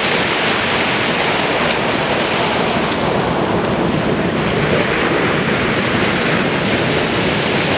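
Sea waves washing on the shore, with wind blowing on the microphone.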